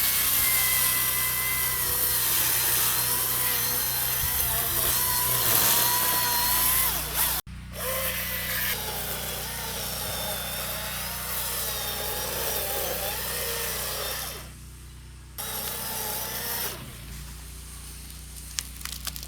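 Milwaukee battery-powered electric chainsaw running and cutting into a pine trunk, its motor whine wavering in pitch under load. The sound cuts out sharply about a third of the way in, then carries on and grows quieter near the end, where a few sharp clicks are heard.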